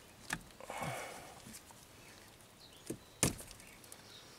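Wire strippers working on an insulated ground wire: a faint click, a brief scraping as the insulation is pulled off, then two sharp clicks of the tool near the end.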